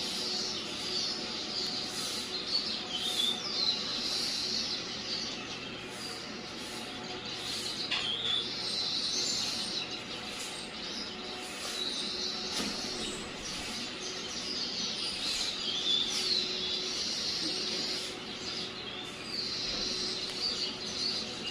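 Small birds chirping and twittering in busy clusters of a few seconds each, over a faint steady hum.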